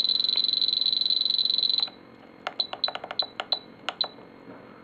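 Spektrum DX7 transmitter's key beeper while its buttons scroll the swash-mix pitch value down to negative 60: a steady high beep while the key is held, which cuts off suddenly about two seconds in. About a second later comes a quick run of short high beeps with button clicks as the key is tapped.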